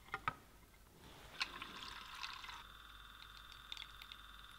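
A few light clinks as the glass beaker is settled on the stirrer. Then a homemade magnetic stirrer runs from about a second in, giving a faint steady whine as the stir bar spins the water into a vortex.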